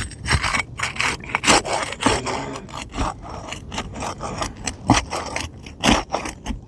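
Roofing shingles being scraped and rubbed in a run of short, irregular strokes, as a lifted shingle is worked underneath to reach its nails.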